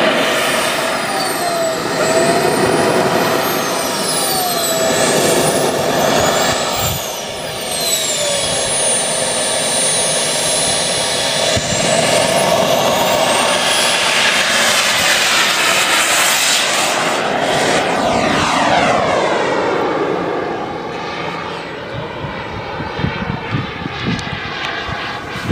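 Radio-controlled model jet taking off and climbing away: a high engine whine over a rushing noise, rising and falling in pitch with the throttle. Its pitch sweeps down as it passes about two-thirds of the way through, then the sound grows fainter as it climbs.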